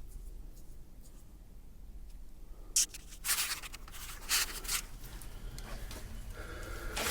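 Footsteps scraping and crunching on a gritty floor inside a small enclosed space. They start about three seconds in with a sharp click, followed by a few scuffing steps close together and more near the end.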